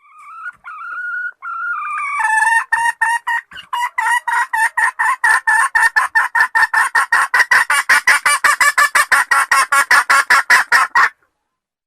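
Wild chicken (red junglefowl) calling: a drawn-out call for about two seconds, then a long, fast run of repeated clucks at about five a second that cuts off suddenly.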